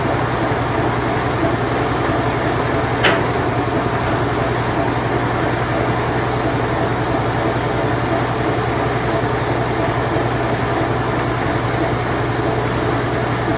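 Late-1980s Whirlpool Imperial Clean Touch washing machine running its spin cycle: a steady hum with a low drone. There is one sharp click about three seconds in.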